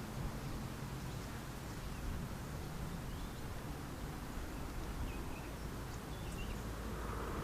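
Wind rumbling steadily outdoors, with a few faint bird chirps.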